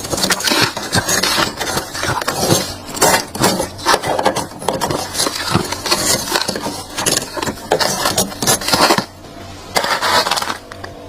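Thick, crunchy freezer frost being scraped: a rapid, irregular run of crunching scrapes, pausing briefly about nine seconds in.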